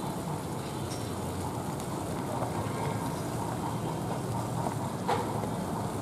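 Small eels deep-frying in a wok of hot oil: a steady, dense sizzle and crackle as they are stirred with a wooden spatula, with one sharp tap about five seconds in.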